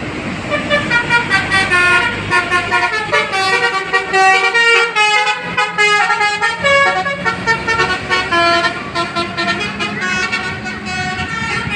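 Basuri multi-tone bus horn playing a fast melody: short pitched notes, about four or five a second, stepping up and down in pitch, over a low steady hum.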